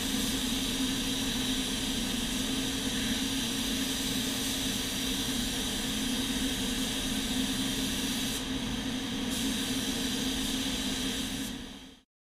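Gravity-feed paint spray gun hissing with compressed air while spraying, over the steady rush and hum of the spray booth's ventilation fans. It cuts off suddenly near the end.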